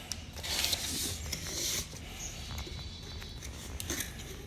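Packaging being handled and opened: rustling and scraping, loudest over the first two seconds, then quieter with a few light clicks.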